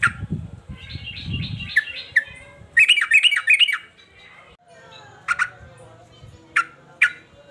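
Male yellow-vented bulbul (trucukan) calling agitatedly: a chattering run of notes about a second in, a louder quick series of notes around three seconds, then sharp single call notes, three near the end. A low rumble runs under the first two seconds.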